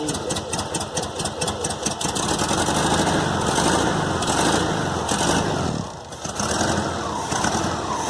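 Volkswagen Fusca (Beetle) air-cooled flat-four engine running warm, idling and then revved up about two seconds in, dropping back around six seconds and picking up again near the end. It runs without the loud exhaust-leak-like roar it had before the loose cylinder head bolts were retightened.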